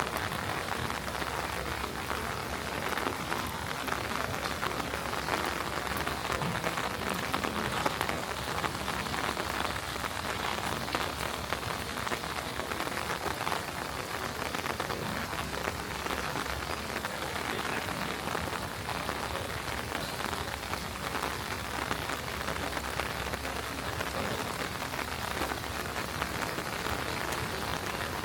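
Steady rain falling, an even, dense patter of drops on surfaces.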